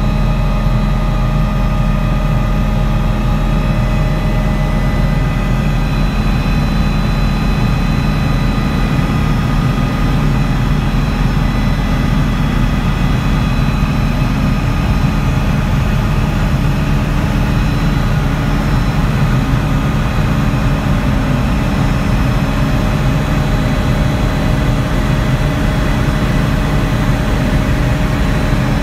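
Hughes 500D helicopter in cruise flight, heard from inside the cabin: a loud, steady drone of the rotors and its Allison 250 turboshaft engine, with thin steady high-pitched tones over the low rumble.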